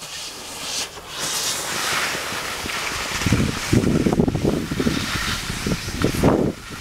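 Wind rushing over the microphone of a camera carried down a ski slope, over the hiss of sliding on snow. From about three seconds in the wind turns into heavy, uneven low rumbling gusts.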